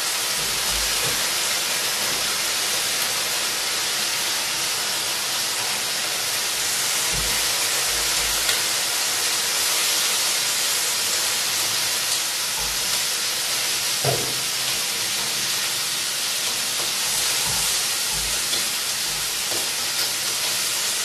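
Bacon sizzling steadily in a frying pan, frying in its own fat with no oil. A single light knock comes about two-thirds of the way through.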